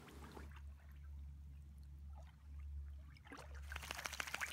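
Faint water sounds of a small dog swimming through shallow lake water: soft trickling and lapping, turning into a quick run of small splashes in the last second or so, over a low steady rumble.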